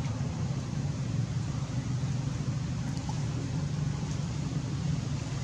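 Steady low rumble with a hiss over it: continuous outdoor background noise with no distinct event standing out.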